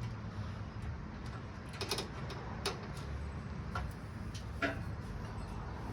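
Scattered light clicks and knocks, about eight at uneven spacing, from hand work on stainless exhaust headers being fitted up and held in place on the engine, over a steady low hum.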